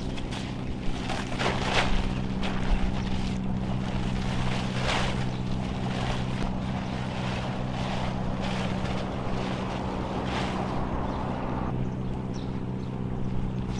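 Thin green plastic tarp (a 100-yen leisure sheet) crackling and rustling in irregular bursts as it is unfolded and spread over a small dome tent, over a steady low engine hum.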